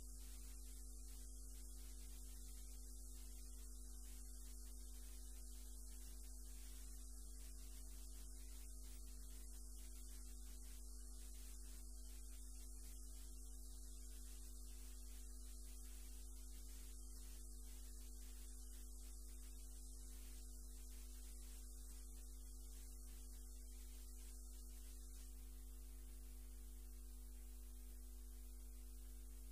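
Low, steady electrical mains hum with a faint hiss, no other sound.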